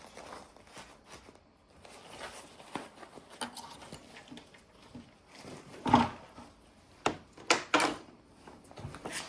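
Gear being handled and unpacked: rustling with a few sharp knocks and clicks, the loudest a thump about six seconds in and a quick cluster of knocks around seven to eight seconds.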